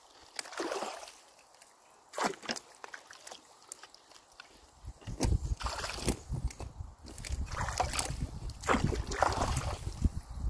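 Water splashing and sloshing in short irregular bursts as a wooden pole is jabbed and dragged through beaver-dam sticks and mud in shallow water, clearing a beaver-clogged culvert. A low rumble joins underneath about halfway.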